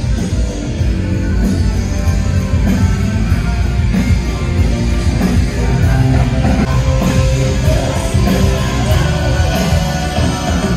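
Rock band playing live at a soundcheck: electric guitar, bass and drums, loud, with a steady beat.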